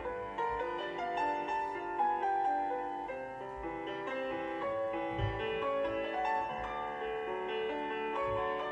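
Piano music playing as accompaniment for a ballet barre plié exercise, slow held notes in a steady flowing line. A brief low thump is heard about five seconds in.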